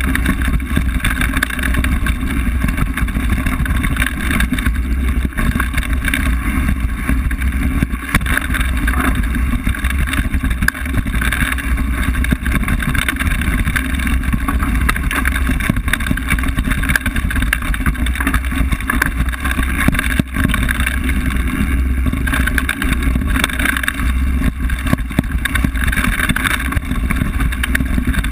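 Mountain bike rolling over a dirt forest trail, heard through a handlebar-mounted camera: a loud, steady rumble of knobby tyres on dirt and roots, with continual small rattles and knocks from the bike and the mount.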